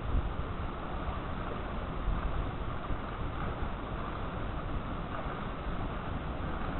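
Wind buffeting the microphone over a steady wash of sea surf on rocks.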